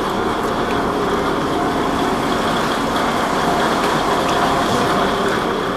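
KiHa 20 diesel railcar's DMH17 diesel engine idling steadily, a constant engine hum with a thin high tone above it.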